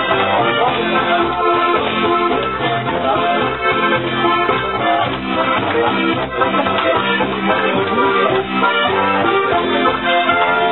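Live band playing volkstümliche (Alpine folk-style) dance music, with an accordion carrying the tune over a continuous accompaniment.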